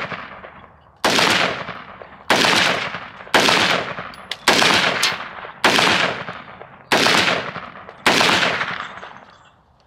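Rifle fired seven times at a steady pace of about one shot a second, each sharp report trailing off in a long echo that dies away before the next.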